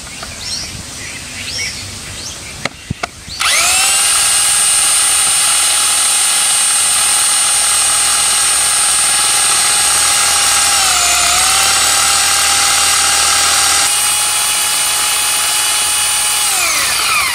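Electric rotary hammer drill in drilling-only mode boring into a concrete wall. After a few clicks, the motor starts abruptly at full speed about three and a half seconds in and runs with a steady high whine, dipping briefly in pitch about eleven seconds in. It winds down near the end as the drill is stopped.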